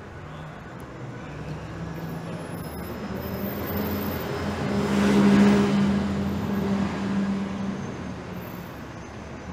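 A road vehicle passes close by, its engine and tyre noise growing steadily louder to a peak about five seconds in, then fading away.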